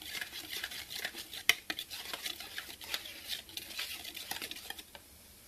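A whisk stirring dry powdered sugar and cocoa powder in a saucepan: a quick run of light clicks and scrapes against the pan, with one sharper tap about a second and a half in. It dies away near the end.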